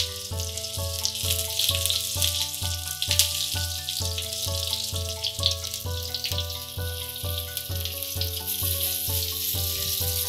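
Fenugreek seeds and red chillies sizzling and crackling in hot mustard oil in a frying pan, under background music with a steady beat.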